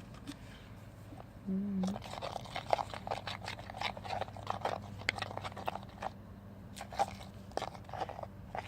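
Spoon mixing glue and laundry detergent slime in a bowl: a run of irregular small clicks and crunches.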